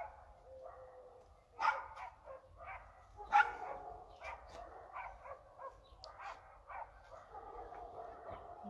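Dogs barking: two sharp barks, the second the loudest, then a string of fainter barks and yips.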